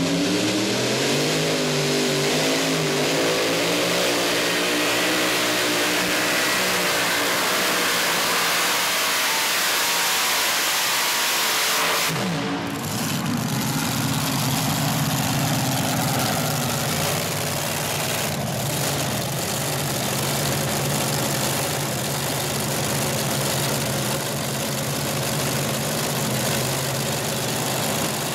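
Multi-engine modified pulling tractor running at full throttle under load, its engine pitch wavering up and down. About twelve seconds in the sound breaks off abruptly to a steadier, lower engine rumble that carries on to the end.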